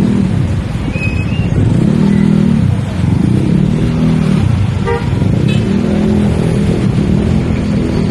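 Motorcycle engines in street traffic, revving up and easing off in turn, with a short horn toot about five seconds in.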